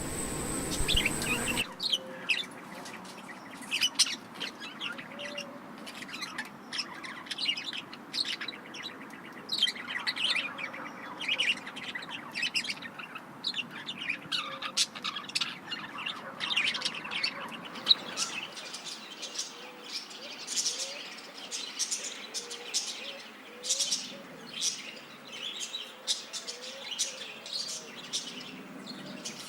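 Birds chirping, with many short, quick calls overlapping one another. A steady hiss with a high tone cuts off suddenly just under two seconds in, before the chirping takes over.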